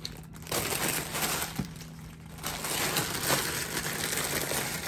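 Clear plastic poly bag crinkling and rustling as a folded garment is handled and bagged, in two spells of rustling, the second longer.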